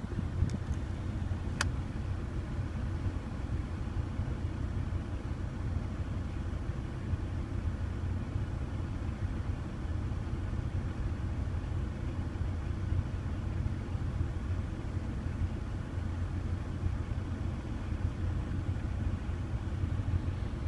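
Jeep Grand Cherokee WJ's 2.7 CRD five-cylinder diesel engine idling with a steady low rumble, with one sharp click about a second and a half in.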